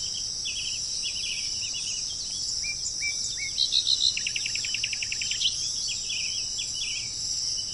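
Small birds chirping over a steady, high-pitched insect drone. Short sliding bird notes come and go, with a quick run of rapidly repeated notes in the middle.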